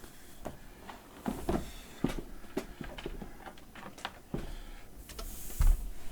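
Irregular clicks and knocks of payphone parts and hardware being handled during disassembly, ending in a heavier thump with a brief scraping hiss about five and a half seconds in.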